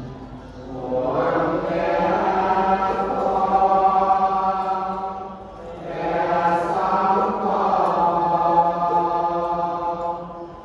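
A group of voices chanting a Buddhist chant in unison, in long held phrases on near-steady pitches: one phrase swells in about a second in and fades, a second follows after a short break about halfway, ending near the end.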